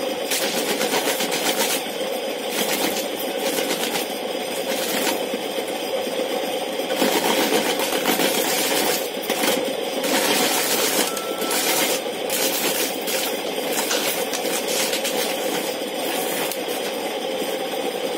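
Small motor-driven corn sheller running with a steady hum while ears of corn are pressed against its spinning disc, the kernels rattling and clattering as they are stripped off and scatter onto the concrete floor, in stretches that come and go.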